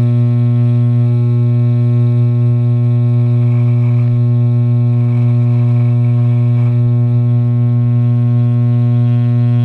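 Wahl electric hair clipper running with a steady low buzz, heard from right on the clipper. Between about three and a half and seven seconds in, a faint rasp joins it as the blade cuts through neck beard.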